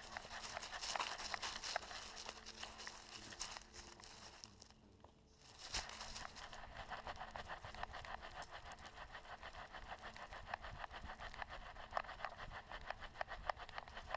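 Continuous crackling and rustling made of many small irregular clicks, dropping away briefly about five seconds in.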